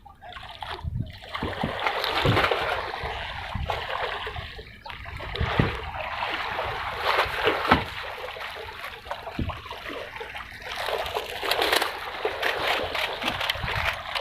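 Water splashing and sloshing unevenly, with a few dull knocks mixed in.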